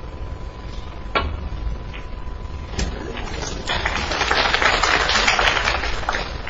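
A snooker cue strikes the cue ball with a sharp click about a second in, and a ball knocks against another ball or the cushion a couple of seconds later. The audience then applauds for about two seconds, fading away near the end.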